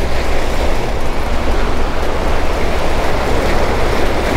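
Sea waves washing and splashing against the rocks of a jetty, a steady rush of surf, with wind rumbling on the microphone.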